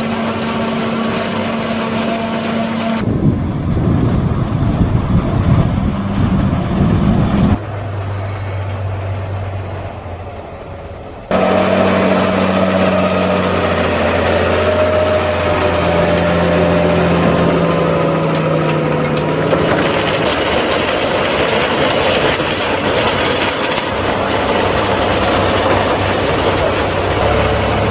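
Tractor diesel engines running, with a forage wagon unloading chopped maize onto a silage clamp in the later part. The sound changes abruptly several times.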